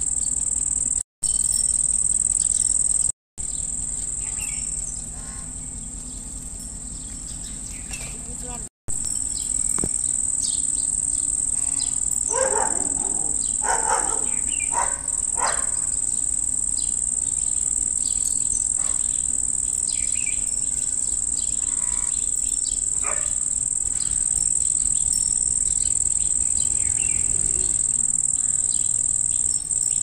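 A steady, high-pitched insect drone, with a few short bird calls about halfway through. The sound drops out briefly three times in the first nine seconds.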